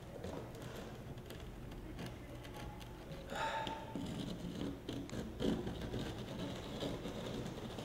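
Razor blade scraping and cutting through sandpaper-like grip tape on a scooter deck, a rough scratching in short irregular strokes. There is a brief louder noise about three and a half seconds in.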